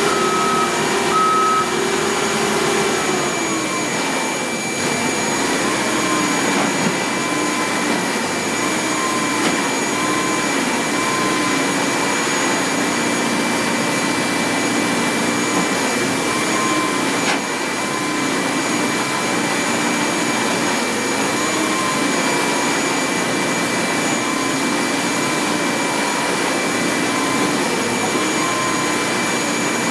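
Airport cargo loader running steadily under a high, even whine, its reversing beeper sounding for about the first second and a half. The engine note drops about three seconds in and then holds.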